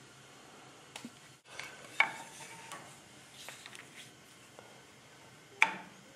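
Hard objects being handled and set down: a few light clicks and clatters, with two louder sharp knocks that ring briefly, one about two seconds in and one near the end.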